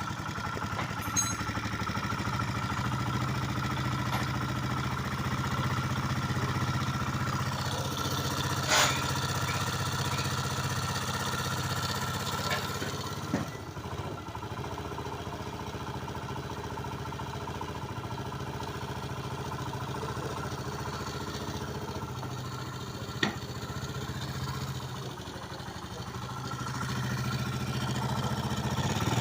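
A vehicle engine idling steadily with an abnormal noise, with a few sharp clicks standing out and the engine getting louder near the end.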